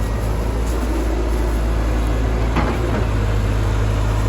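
Excavator engine running steadily with a low rumble, with one short clank about two and a half seconds in.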